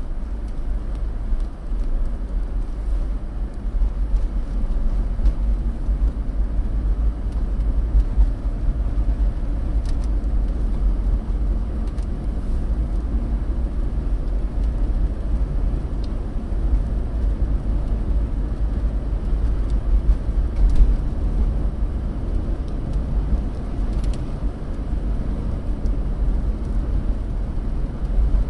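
A car driving on a snow-packed road, heard from inside the cabin through a dashcam: a steady low rumble of tyres and engine, with a few faint ticks.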